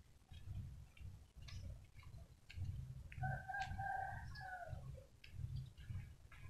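A rooster crowing once, a single held call of about a second and a half that falls away at the end, midway through. Under it, the low, regular thud of walking footsteps about twice a second.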